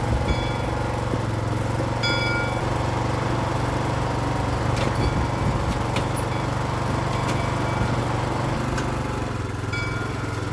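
Troy-Bilt Pony lawn tractor engine, the power unit of a homemade trackless train, running steadily. A few short high-pitched tones sound over it, about two seconds in and again near the end.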